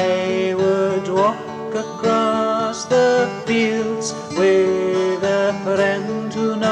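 Music: a song passage led by acoustic guitar, with several notes sliding up into pitch.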